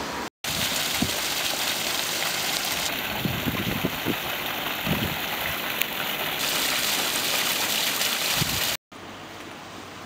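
Water spilling from a stone statue's spout and splashing over mossy rocks into a stream: a steady, loud rushing splash. Near the end it gives way to the quieter, gentler flow of a shallow streambed.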